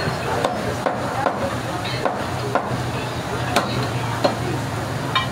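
Butcher's cleaver chopping goat meat on a wooden log chopping block: about eight sharp chops at an uneven pace, over a steady low hum.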